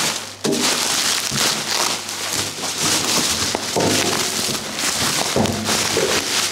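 Bubble wrap and plastic film crinkling and rustling as they are pulled off a large wrapped part by hand: a steady, dense crackle with many small irregular snaps.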